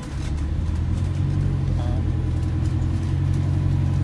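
ADL Enviro 400H hybrid double-decker bus drivetrain heard from inside the cabin while the bus drives: a steady low drone that gets louder about a third of a second in and then holds.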